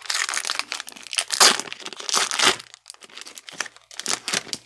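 Foil wrapper of a Topps baseball card pack crinkling as it is torn open, loudest in the first two and a half seconds, then softer rustling as the cards are pulled out and handled.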